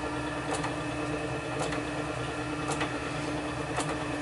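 A steady mechanical hum with a faint tick roughly once a second.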